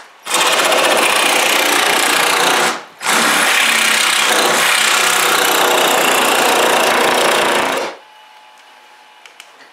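Cordless reciprocating saw cutting through a wooden board, in two runs: one of about two and a half seconds, a brief pause, then a longer run of about five seconds that stops about eight seconds in.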